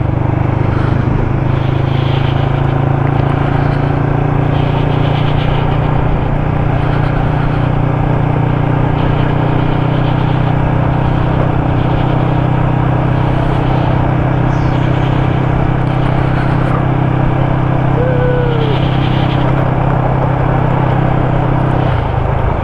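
Vehicle engine running at a steady speed over road and tyre noise while driving on a rough track; the engine note changes near the end.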